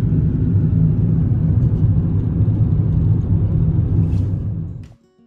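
Steady road and engine rumble of a moving car, heard from inside the cabin, fading out sharply near the end. Quiet acoustic guitar music starts right after.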